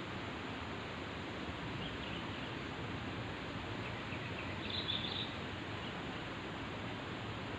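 Steady outdoor background hiss with a few short, high bird chirps about two seconds in and a brighter cluster of chirps around five seconds.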